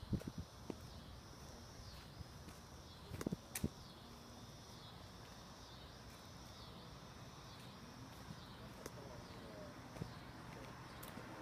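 A high, even chirping that repeats about twice a second, with a few sharp footstep-like knocks on dirt and gravel just after the start and again around three and a half seconds in.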